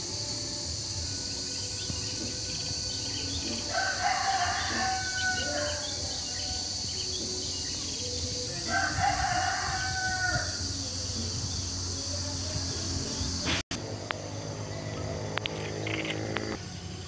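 A rooster crowing twice, each crow about two seconds long and a few seconds apart, over a steady high hiss.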